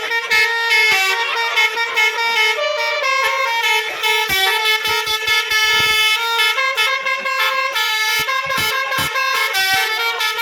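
Bus's Basuri telolet musical air horn playing a tune: several horn notes sound together and step up and down in pitch every fraction of a second, without a break.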